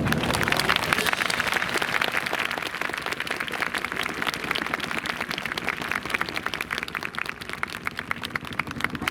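Audience applauding, the clapping slowly dying away into a few scattered claps near the end.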